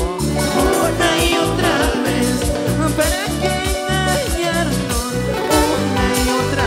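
A live band playing a Latin dance tune with singing over a steady, driving bass beat.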